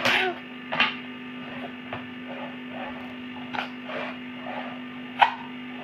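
A small child blowing up a latex balloon in short puffs, with quick breaths between, about five sharp bursts, the loudest near the end. A steady low hum runs underneath.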